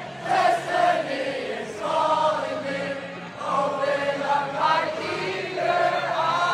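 A large group of voices singing or chanting together in phrases, ending with a long held note near the end.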